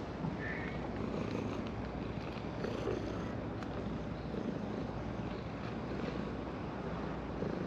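Orange tabby cat purring steadily while being stroked along its back.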